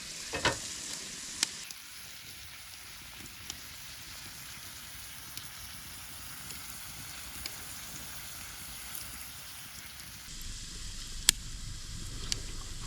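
Horumon (offal) sizzling steadily on an iron griddle over a wood fire, with a few sharp clicks. A low rumble joins about ten seconds in.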